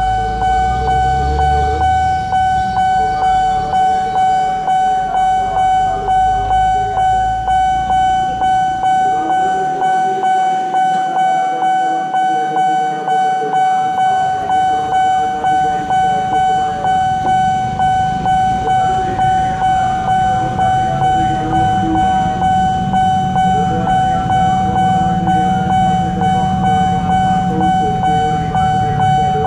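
Railway level-crossing warning bell ringing on one steady high tone in an even, repeating pulse. Motorbike engines run low underneath and fall away for a few seconds in the middle.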